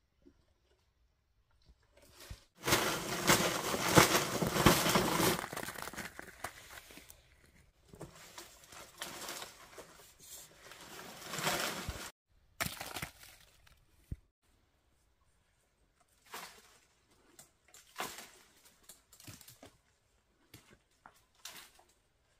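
Leaves and brush rustling and crackling, loudest for about three seconds near the start, then broken rustles and scattered short knocks while a long bamboo pole works the fronds of a fan palm during fruit picking.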